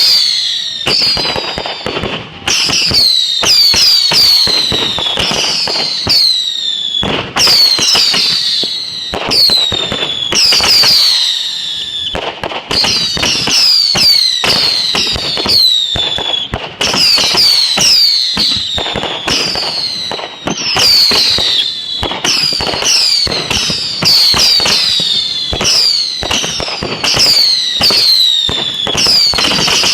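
Fireworks going off in a dense barrage. Many whistles falling in pitch overlap at about one or two a second, over continuous bangs and crackling.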